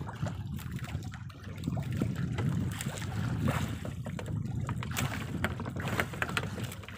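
Wind buffeting the microphone and water lapping against a small outrigger fishing boat, a steady low rumble with scattered light knocks and clicks.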